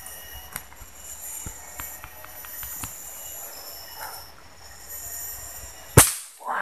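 A steady, high-pitched drone of insects, then a single sharp rifle shot about six seconds in.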